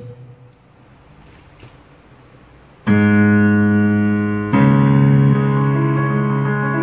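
Yamaha DGX-660 digital piano played with a piano voice: after about three quiet seconds, a full chord is struck and held, a second chord follows about a second and a half later, and the notes shift near the end.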